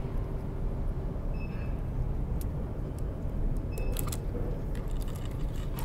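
Steady low rumble of shop background noise, with a few light clicks scattered through it.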